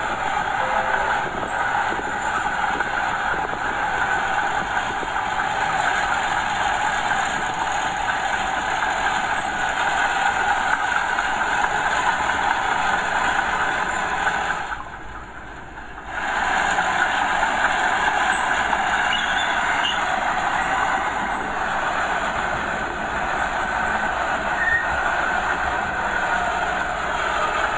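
Small Komatsu bulldozer working, its engine and steel tracks making a loud, steady mechanical noise that drops away for about a second just past halfway.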